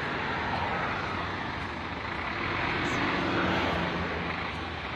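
Heavy truck's diesel engine running, growing a little louder for a second or so in the middle.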